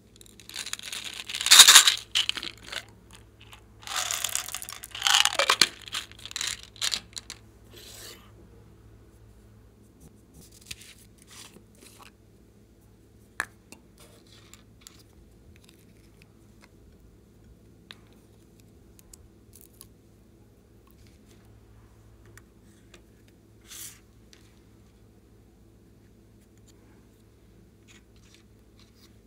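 Loud crackling rattle in two bursts over the first seven seconds, then scattered light clicks and taps as small items are handled and added to a glass bowl of slime.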